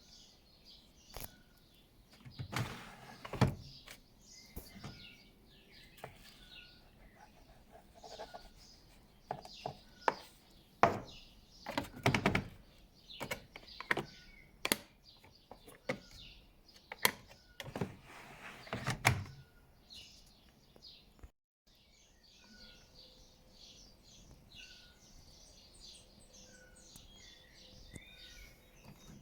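Irregular knocks and clicks with a few heavier thumps, stopping about two-thirds of the way in, over faint repeated bird chirps.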